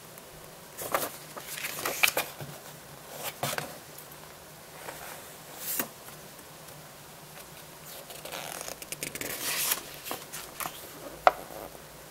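Paper pages of a printed booklet rustling and crinkling in irregular bursts as they are turned and handled, with a sharp tick near the end.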